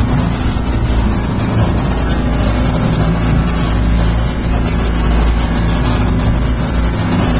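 A ferry's engine running steadily under way, a low, even hum over a constant rush of wind and water from the boat's wake.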